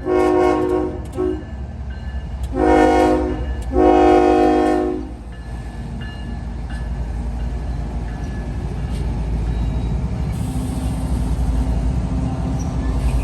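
Diesel locomotive air horn sounding three blasts in the first five seconds, each a chord of several tones, the last one longest. Then the low, steady rumble of the GE ES44/ET44AH locomotives working and the loaded train rolling, slowly growing louder.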